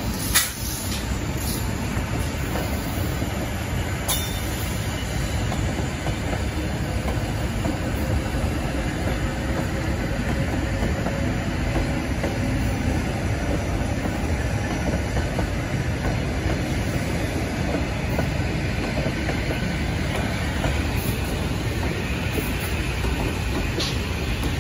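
An EP2DM electric multiple unit passing close by, with the steady noise of its wheels running on the rails. There is one sharp clack about half a second in.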